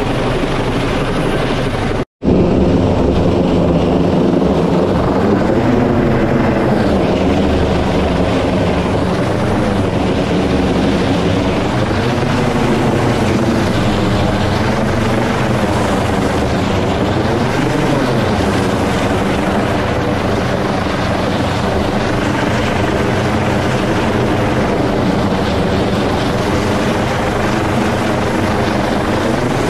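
U.S. Coast Guard MH-65 Dolphin helicopter hovering close overhead during a basket hoist, its rotor and engines running loud and steady, with the pitch of its tones wavering slowly up and down. The sound cuts out completely for a split second about two seconds in.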